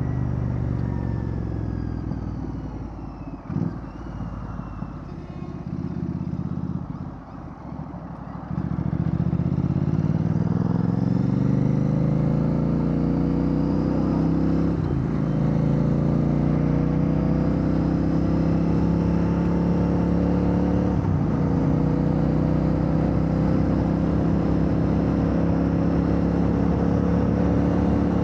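Royal Enfield Bear 650's parallel-twin engine through a Red Rooster Performance aftermarket exhaust, heard while riding. It is lighter and uneven for the first several seconds, then from about eight seconds in the engine note climbs under acceleration, with two short breaks for upshifts, before holding a steady cruising note.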